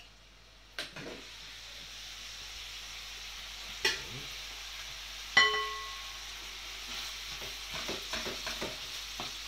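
Onions frying in oil in a tagine, with a steady sizzle that sets in about a second in. About halfway through, a utensil strikes the pot once with a sharp, ringing clink, and there are a few smaller knocks near the end.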